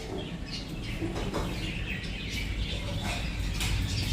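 Pet parrot making brief, scattered chirps.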